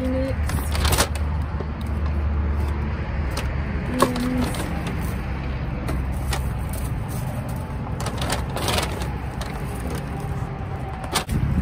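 Rustling, knocks and clatter of trash being moved and sorted by hand inside a dumpster, over a low rumble that fades out about four seconds in.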